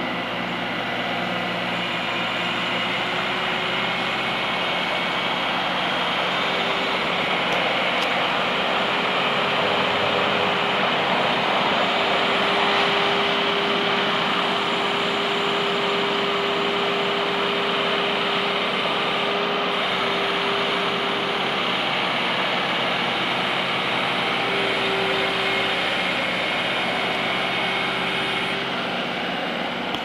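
A Bobcat S300 skid steer loader's diesel engine running steadily at working speed, with a steady whine above the engine noise, as the machine drives and raises and lowers its loader arms.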